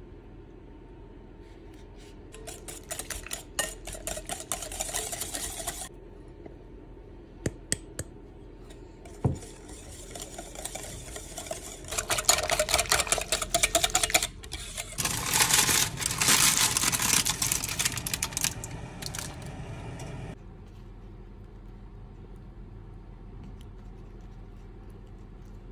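Wire whisk beating a runny egg-and-yogurt pie filling in a glass bowl: rapid clicking and scraping of the wires against the glass with a wet slosh, in a few bouts with single taps between them, the longest and loudest stopping about 20 seconds in.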